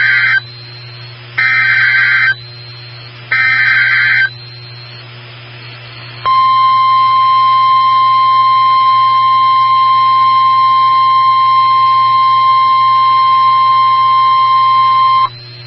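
NOAA Weather Radio alert signal: three short bursts of warbling digital SAME header data about a second apart, then a steady single-pitch 1050 Hz warning alarm tone held for about nine seconds that cuts off abruptly. It announces a new warning, here a tornado warning.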